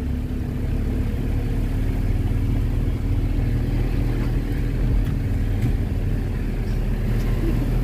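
Car engine and road noise heard from inside the car, a steady low rumble as it climbs a steep mountain road.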